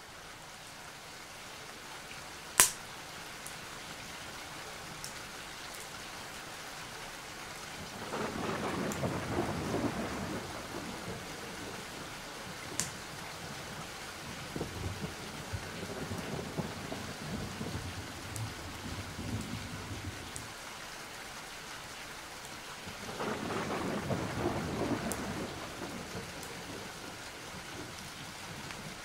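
Steady rain with two rolls of thunder swelling and fading, about eight and twenty-three seconds in. A single sharp crack, the loudest moment, comes about two and a half seconds in.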